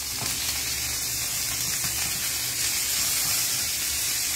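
Two steaks searing in a hot frying pan, a steady sizzle.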